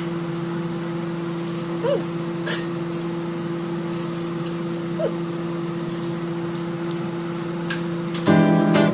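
A steady electrical appliance hum with a few light clicks and two short vocal sounds from the eater. Strummed acoustic guitar music starts near the end.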